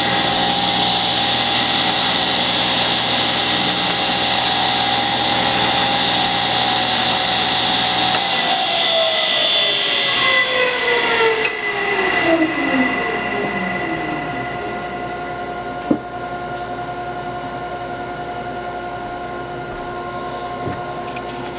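Table saw running free after a cut, then switched off about eight seconds in, its blade and motor winding down in a falling whine over about five seconds. A steady machine hum carries on underneath, with a single knock near the end.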